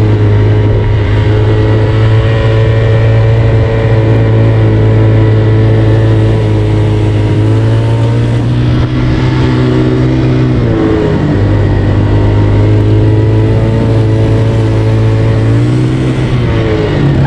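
Four-wheel ATV buggy engine running steadily as the buggy is ridden. Its note dips briefly and recovers about ten seconds in and again near the end.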